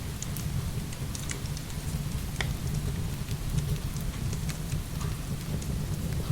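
Heavy rain pouring steadily, with a deep, continuous rush, mixed with scattered sharp crackles and pops from a wood fire burning.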